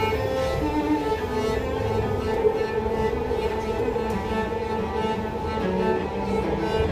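Cello bowed in a melody of held notes, over the steady low rumble of the moving train carriage.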